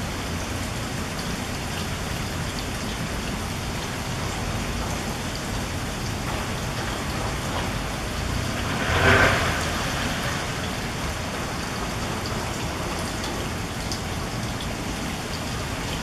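Steady rain falling, a dense even hiss of drops. About nine seconds in, a brief louder whoosh swells up and fades within a couple of seconds.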